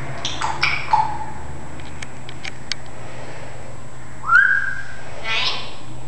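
Timneh African grey parrot vocalising: a few short calls, then a series of faint clicks, then a clear whistle about four seconds in, followed by a harsher call.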